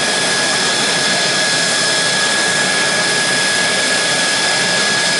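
Mitsubishi F-2's single F110-IHI-129 turbofan running steadily on the ground during an engine run-up: an even, loud rush of jet noise with a thin high whine held on top.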